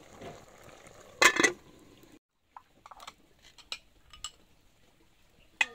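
Dishes and utensils clinking: a loud clatter about a second in, then a few light clinks and taps.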